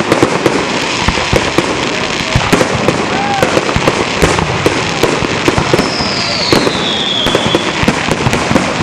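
Fireworks display: a dense, continuous run of bangs and crackling from many shells bursting in quick succession, with a whistling firework gliding down in pitch about six seconds in.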